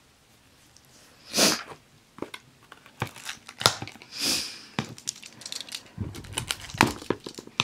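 A shrink-wrapped trading card box being handled: short crinkles and rustles of the plastic wrap, with light clicks and taps between them.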